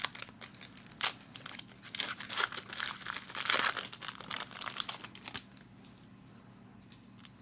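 Wrapper of a 2011-12 Upper Deck SP Authentic hockey card pack being torn open and crinkled by hand, an irregular rustling and crackling that stops about five and a half seconds in.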